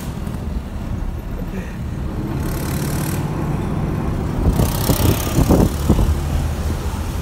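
Car engine and road noise heard from inside a moving car, a steady low rumble with a faint engine hum. A little past the middle there is a short rush of noise and a few low thumps.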